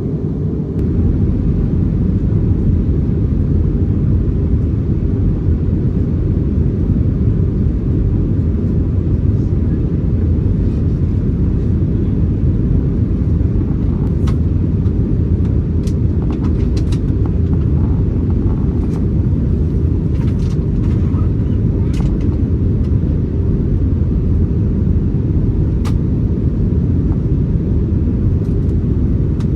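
Steady low rumble of engine and airflow noise inside the cabin of an Airbus A321neo, with scattered light clicks and rattles.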